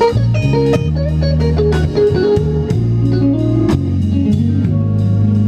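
Blues-rock band playing an instrumental passage: an electric guitar lead with bent notes over held bass notes and drums.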